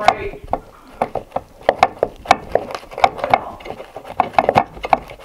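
Electrical cable being pushed up inside a wall cavity, tapping and scraping against the wooden framing in a quick, irregular run of clicks and knocks.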